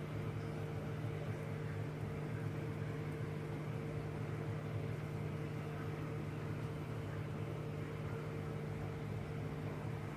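Steady low hum over an even hiss from the pumps and equipment running a reef aquarium.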